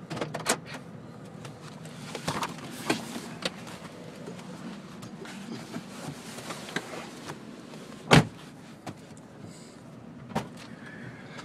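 Inside a moving car: a steady low hum of engine and road, broken by scattered short clicks and knocks and one sharp, loud thump about eight seconds in.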